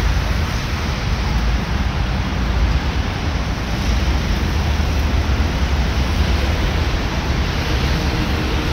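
Steady rushing outdoor background noise with a heavy low rumble and no distinct knocks or voices.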